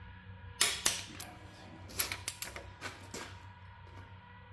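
Torque wrench on a cylinder head bolt during the final 65 lb-ft tightening pass: a few sharp metallic ratchet clicks, about half a second in, around two seconds and near three seconds.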